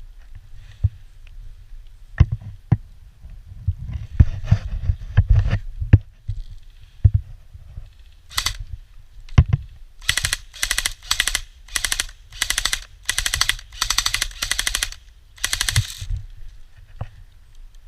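Airsoft guns firing: scattered single clicks and low thumps, then from about halfway a string of around ten short rapid-fire bursts.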